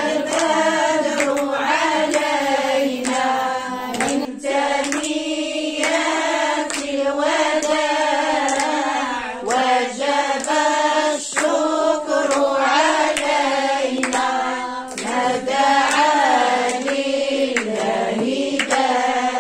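Background song with voices singing an Arabic melody over handclaps.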